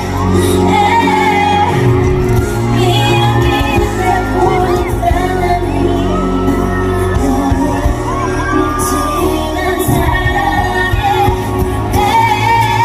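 Live pop music with singing played loud over a concert sound system, echoing in a large venue, with some crowd noise.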